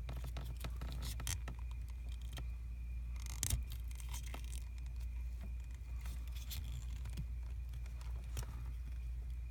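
Faint scattered clicks and light rattles, with one louder click about three and a half seconds in, over a steady low hum.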